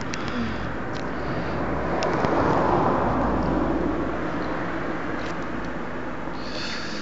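A car passing along the road: tyre and engine noise swells to its loudest two to three seconds in, then fades away. A few light knocks sound over it.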